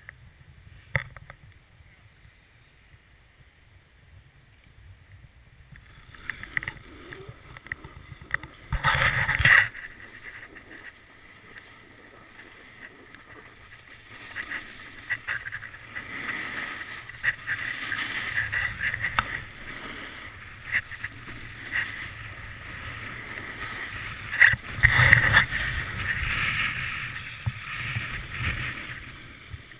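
Snowboard sliding and carving over packed snow, an uneven scraping swish that comes and goes. Quiet for the first several seconds, then louder, with two hard scrapes about nine seconds in and again near twenty-five seconds.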